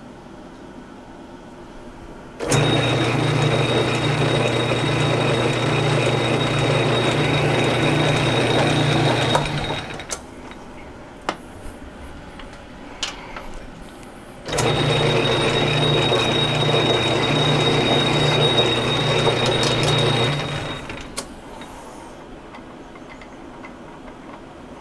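South Bend 9-inch Model A metal lathe running under power for two thread-chasing passes, each a steady hum with a thin high whine lasting about seven and six seconds before it is switched off. Between the passes come a few sharp clicks of the tool being backed out and the half nuts disengaged.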